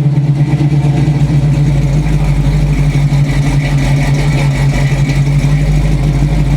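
Chevrolet 283 small-block V8 idling steadily, heard through long-tube headers, dual 2.25-inch pipes and Flowmaster 40 series mufflers with turn-downs.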